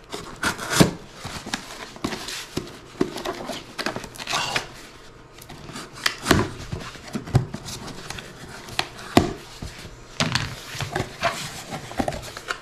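Folding knife slicing through packing tape on a cardboard box: a run of irregular scraping strokes and clicks. Near the end, the cardboard flaps are pulled open.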